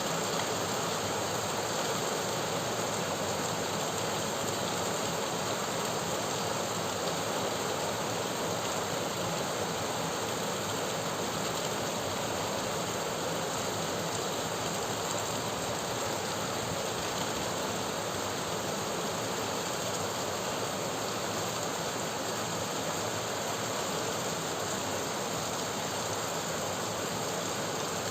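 Steady rain falling, an even hiss of water that holds the same level throughout.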